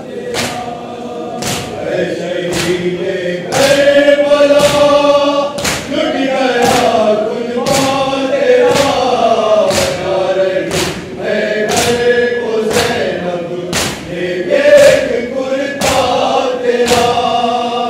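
A group of men chanting a Shia noha (mourning lament) together in a steady melody, with loud hand slaps on the chest (matam) keeping an even beat throughout.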